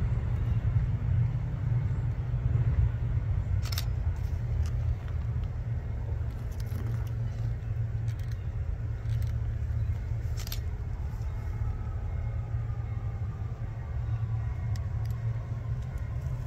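A pair of GE C40-8W diesel locomotives running with a steady low rumble, each driven by a 16-cylinder diesel engine. A few sharp clicks stand out over it.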